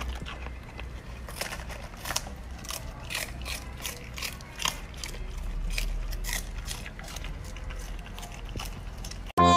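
A golden retriever puppy biting and chewing raw napa cabbage leaves, with crisp, wet crunches about three times a second.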